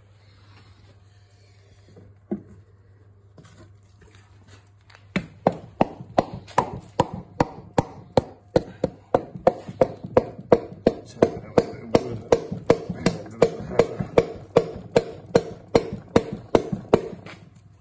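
Rapid, evenly spaced hammer blows, about three to four a second from about five seconds in, knocking a stuck piston up out of its cylinder bore in a Rootes 1600 engine block by driving against the connecting rod from below. One single knock comes about two seconds in.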